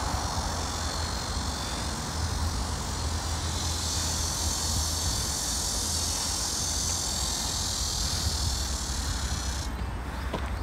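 Steady outdoor background noise: a low rumble with a high hiss above it. The hiss cuts off abruptly near the end.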